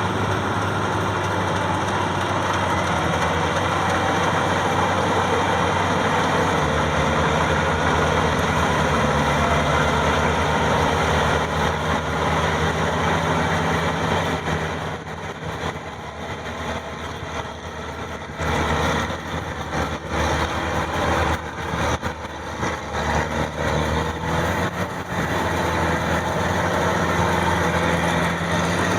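Maxxi 85 combine harvester's diesel engine running steadily. About halfway through it grows quieter and uneven for several seconds, then steadies again.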